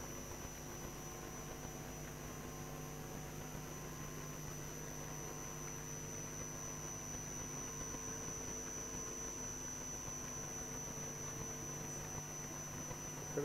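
Steady electrical hum and faint hiss with a thin high steady whine, the background of the chamber's open microphone feed.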